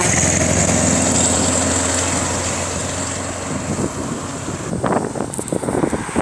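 Scania R620 truck's V8 diesel passing close by: a steady low drone, loudest at first, that fades as the truck pulls away. A steady high whine runs over it, and there are a few irregular crackles near the end.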